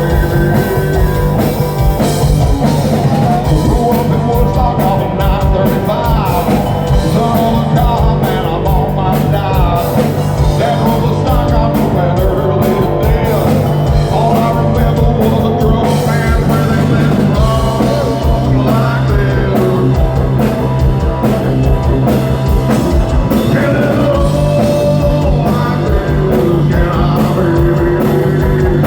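Live rock band playing loud, with a singer over bass and drums; the bass note changes about halfway through.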